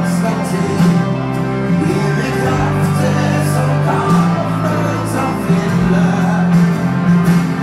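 Live country-rock band playing: electric and acoustic guitars, bass and drums, with singing, heard through a large hall.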